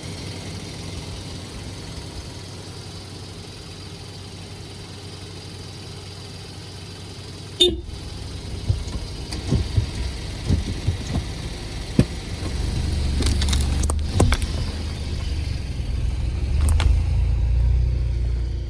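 Car engine idling, then revved in short bursts as the accelerator pedal is pumped, with sharp clicks and knocks among the revs. Near the end the engine holds longer, heavier runs of revs.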